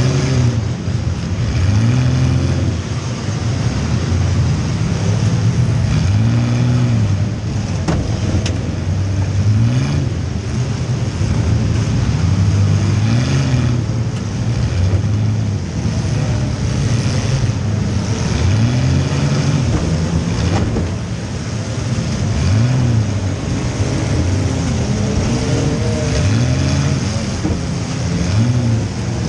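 Compact demolition derby car's engine heard from inside the cabin, revving up and dropping back over and over as it is driven hard, with a few sharp bangs of contact along the way.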